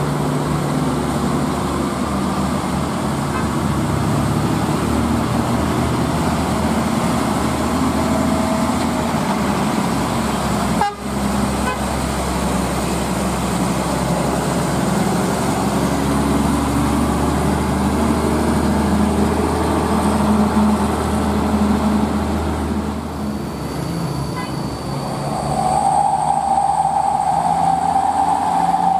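Old Mercedes-Benz truck's diesel engine labouring steadily up a steep grade under a heavy load. There is a short break about 11 seconds in. Near the end a vehicle horn sounds one long, steady note over the traffic.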